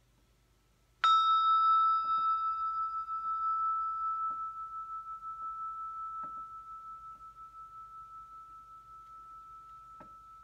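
A brass hand bell rung once, about a second in. It gives a single clear high tone that fades slowly with a gentle wavering, while its brighter overtones die away within a couple of seconds.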